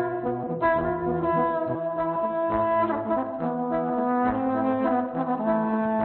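Trombone played live through loop electronics: sustained notes layered over a low repeating bass figure built from its own looped phrases, so several trombone notes sound at once.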